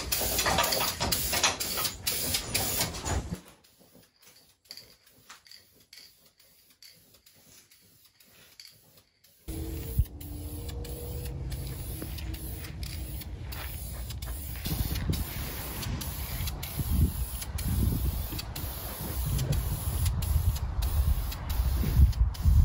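Aerosol spray-paint can hissing for a few seconds, then a near-quiet stretch. From about ten seconds in there is a steady low rumbling noise with scattered knocks.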